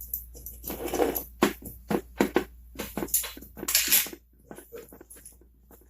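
Small metal chainsaw parts being handled during reassembly: a quick run of clicks, knocks and rustling for about four seconds, then only a few faint ticks.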